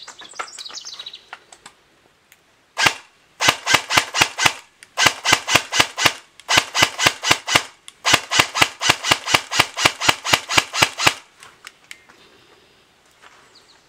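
Valken Battle Rifle airsoft gun firing in rapid bursts of evenly spaced sharp shots: a single shot, then three bursts of about a second each and a longer burst of about three seconds. At the start a bird chirps a quick falling run of notes.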